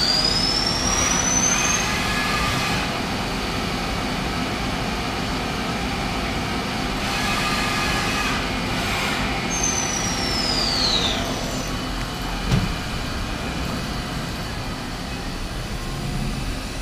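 Mori Seiki DuraVertical CNC mill running a chamfering pass: its spindle whine rises at the start, the machine runs steadily, and the whine falls away about ten seconds in as the spindle slows. A short knock follows a couple of seconds later.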